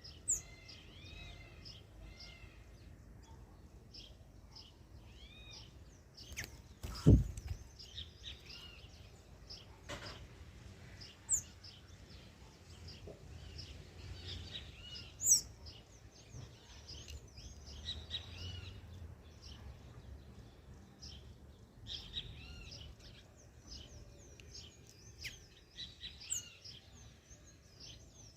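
Several small birds chirping and calling in short repeated arched notes, with a few sharp high calls. A loud knock about seven seconds in and a softer one near ten seconds.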